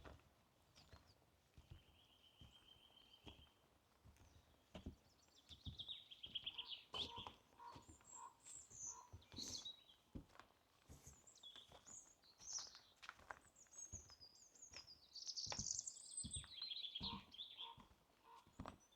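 Forest birds singing: a short trill about two seconds in, then quick trilled and warbling phrases, a run of lower repeated notes, and a long high warbling song near the end. Soft footsteps on a forest path thud every second or so underneath, all faint.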